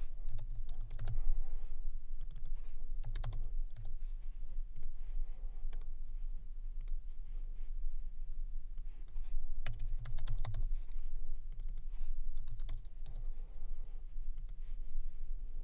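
Computer keyboard typing in several short bursts of quick key clicks, with pauses between them.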